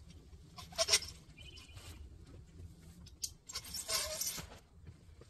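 Pop-up canopy being collapsed by hand: the metal scissor frame rattles and squeaks and the fabric top rustles as it folds. The loudest bursts come about a second in and again around four seconds in.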